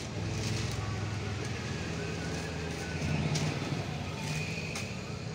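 Silk sarees being handled and folded by hand: soft fabric rustling with a few short crinkles, over a steady low hum.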